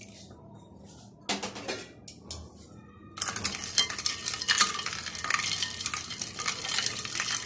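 Plastic spoon stirring milk and ice cubes in a plastic bowl, a busy run of small knocks and sloshing that starts about three seconds in. A short knock-and-rustle comes about a second in.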